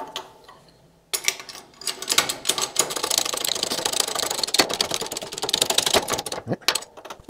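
Hydraulic shop press forcing the annulus of a Triumph A-type overdrive out of its rear housing: a dense, rapid clicking rattle starts suddenly about a second in and lasts about five seconds. It ends with a few separate clicks and a short rising squeak.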